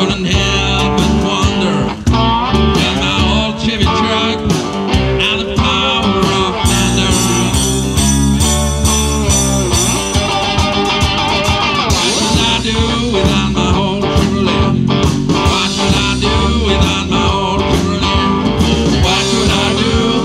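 Live blues band playing an instrumental passage: homemade cigar-box guitars over a drum kit with a steady beat.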